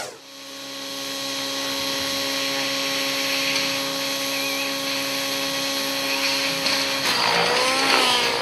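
Radio-controlled nitro helicopter's engine and rotor running at a steady high pitch, rising in level over the first two seconds as it spools up and lifts off. About seven seconds in, the pitch starts swinging up and down as the helicopter is thrown into a steep climb.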